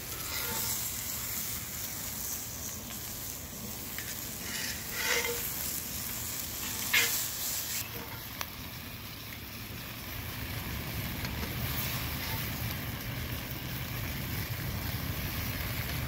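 Chicken and vegetables sizzling on a grill grate and in a cast-iron skillet over a wood fire: a steady hiss, with a few sharp clicks near the middle.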